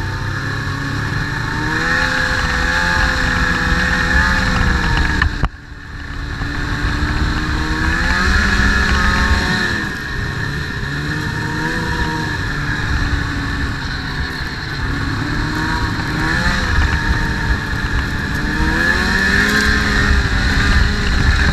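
Snowmobile engine running, its pitch rising and falling repeatedly as the throttle is opened and eased off. The sound cuts out for a moment about five seconds in.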